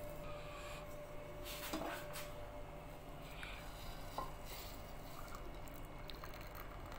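A metal saucepan clinking lightly against a ceramic cup a few times while black coffee is poured from it, the loudest clink about two seconds in.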